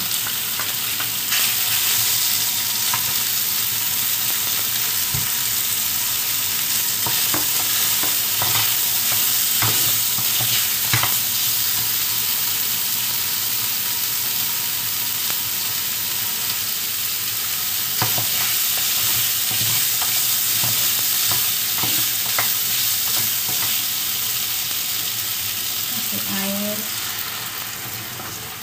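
Chicken breast and meat frying in a wok with a steady sizzle, stirred with a wooden spatula that scrapes and knocks against the pan now and then. The sizzle eases off near the end.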